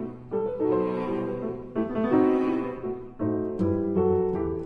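Background music on piano: a gentle classical-style piece with notes changing in phrases about every second and a half.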